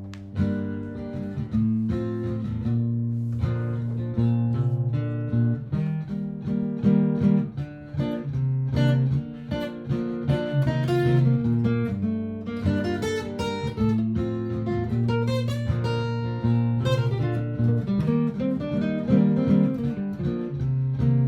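Martin GPCPA4 acoustic guitar improvising over a looped guitar backing. Held low notes and chords repeat underneath while single picked notes and runs play on top.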